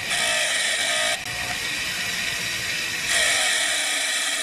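Bench grinder's wire wheel brushing a cast copper ingot: a loud steady hiss of wire on metal over the motor's whine. It eases a little about a second in and rises again about three seconds in as the bar is pressed harder against the wheel.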